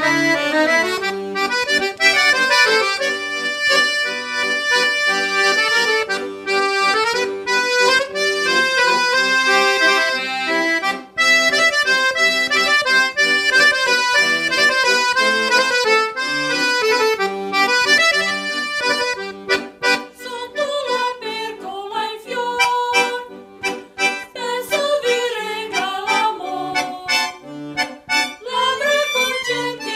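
Piano accordion playing a lively tune, with a mixed choir's voices joining in about two-thirds of the way through.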